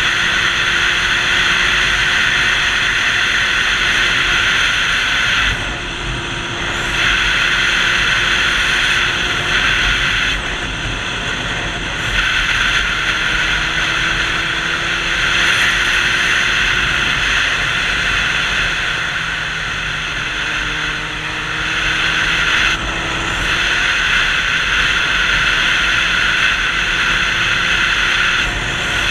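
Sport motorcycle on the move: a loud, steady rush of wind and road noise with the engine's hum underneath, its pitch slowly rising and falling. The rush drops away briefly a few times, about 6, 12 and 23 seconds in.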